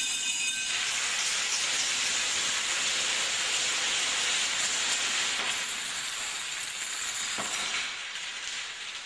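Rapid, continuous clatter of a long run of small dominoes toppling one after another, starting about a second in and fading away near the end, with one sharper knock shortly before it dies down.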